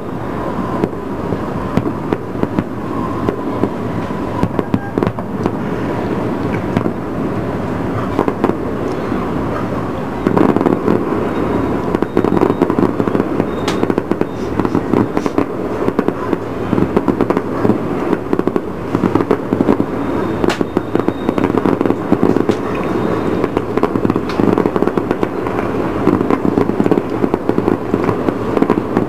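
Aerial fireworks shells going off in a dense, continuous run of bangs and crackles, growing louder about ten seconds in.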